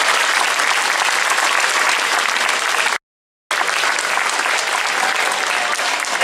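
Audience applauding, a steady dense clapping that briefly drops out to complete silence for about half a second around halfway through.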